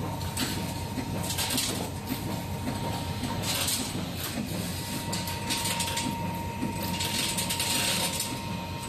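Factory machinery running, with a dense, steady metallic clatter of small steel screw blanks rattling in a machine bowl and a steady whine.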